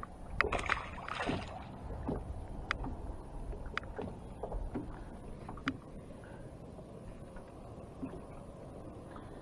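Light handling noises aboard a small fishing boat: a brief rustle in the first couple of seconds, then a few scattered sharp clicks and knocks, over a low steady rumble.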